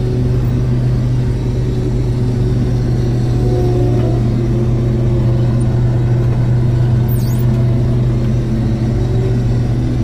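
Combine harvester running while it combines, heard from inside the cab: a steady low drone of the engine and threshing machinery.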